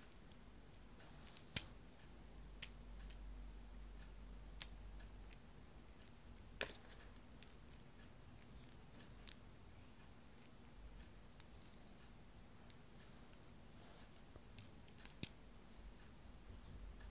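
Small plastic toy building bricks clicking as they are handled and pressed together, in scattered irregular clicks with a few sharper snaps.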